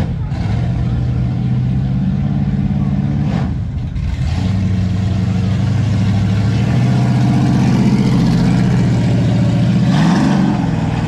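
A second-generation Chevrolet Camaro's engine pulling past under acceleration. The note drops with an upshift about four seconds in, then rises as it revs near the end.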